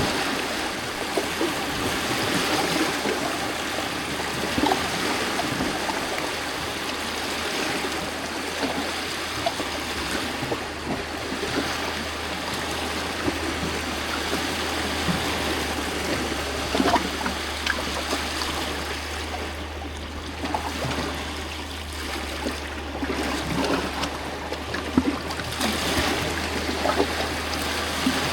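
Small lake waves lapping against a rocky shoreline: continual trickling and gurgling of water among the rocks, broken by many small splashes, over a steady low rumble.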